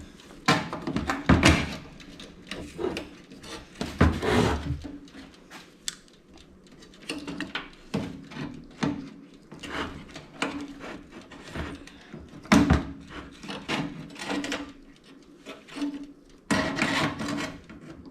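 Irregular clicks, knocks and rattles of a toaster oven's sheet-metal parts being handled and worked apart by hand, with a few louder clunks about a second in, around four seconds in and about twelve seconds in.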